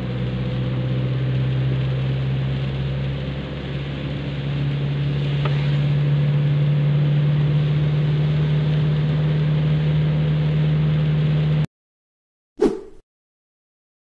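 Car engine running steadily, heard from inside the cabin, with road noise from tyres on a wet road; it cuts off suddenly near the end, followed by a single short burst of sound.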